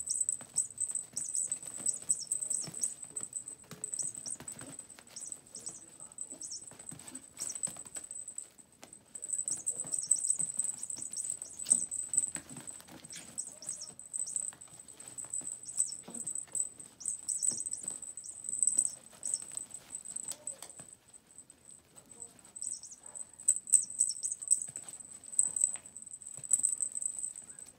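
Yorkshire terrier puppies scrambling and scratching across pee pads as they chase and bat a string mouse toy: a busy, irregular patter of small paws, rustling and light knocks that comes and goes in bursts. A constant high-pitched ringing tone sits over it.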